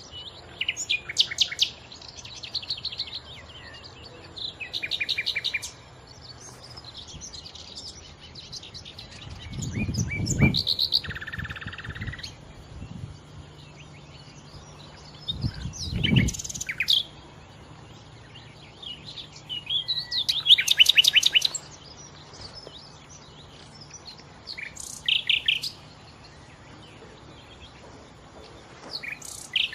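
A nightingale singing in separate phrases a few seconds apart, mostly fast runs of repeated notes with one held whistle-like note. Two low thumps come about a third and halfway through.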